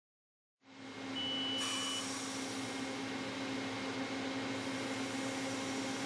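A steady mechanical hum with a low drone fades in about half a second in. A short high beep sounds about a second in.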